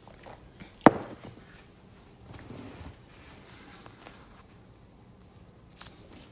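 A single sharp knock about a second in, followed by faint rustling and a smaller click near the end.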